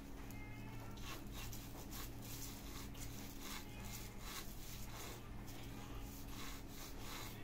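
Crinkly plastic strips on a stick toy rustling in repeated short bursts as they are waved at and batted by a kitten.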